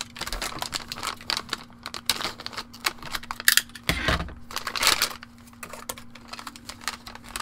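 Crinkling and rustling of a metallized anti-static bag being handled and opened around a 2.5-inch laptop hard drive, in quick irregular crackles, with a dull knock about four seconds in.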